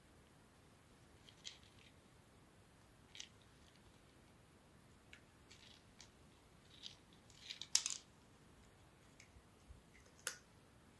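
A cat eating dry treats picked from a wooden ball-track puzzle toy: faint, scattered crunches and clicks, with a louder cluster about eight seconds in and one sharp click near the end.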